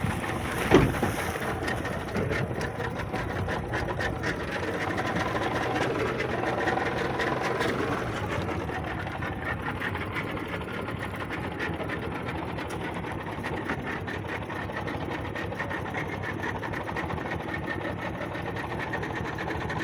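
Small fishing boat's outboard motor running steadily with a fast even chatter, with a single knock about a second in.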